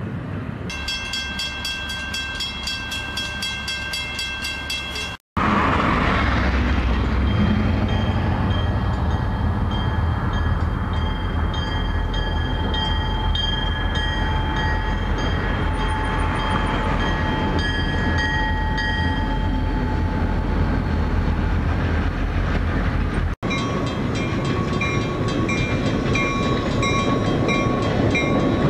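Diesel locomotives passing level crossings: a steady low engine rumble with a crossing signal bell ringing in repeated strokes. The sound cuts out suddenly twice.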